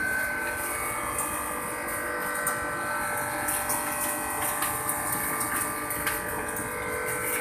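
Refrigeration plant running: a steady mechanical hum and buzz with several steady tones from the compressor and motors, with a few faint ticks.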